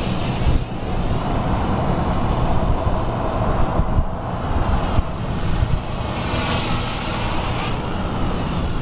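Micro RC helicopter's Extreme Spin 16,300 kV motor and rotor running with a high whine that wavers in pitch with the throttle, fading briefly about four seconds in before coming back.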